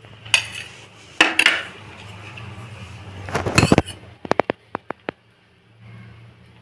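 A steel spoon knocking and clinking against a bowl as ketchup is scooped out: a few knocks, a louder cluster a little past three seconds, then a quick run of about seven light clinks.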